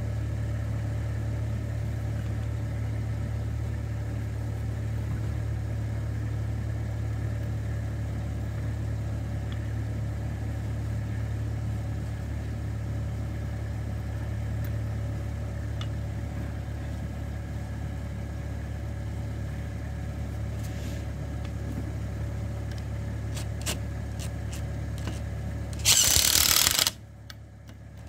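A small car engine idling steadily, left running to warm up in the cold. A few light metal clicks come near the end, then a loud burst of about a second from an impact wrench spinning a wheel nut on.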